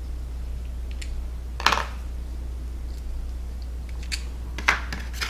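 A few short sharp clicks and taps of small steel screws being pulled from the BB-filled, 3D-printed weight shell and set down in a cardboard tray, the loudest about a second and a half in, over a steady low hum.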